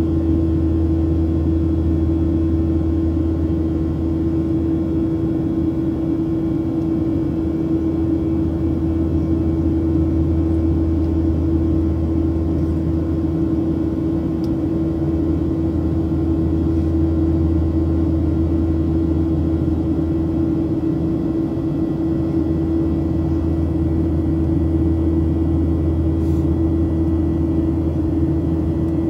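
Steady cabin drone of a Boeing 737-700 climbing after takeoff: its CFM56-7B24 turbofans and airflow heard inside the cabin as a low rumble under a steady hum, unchanging throughout.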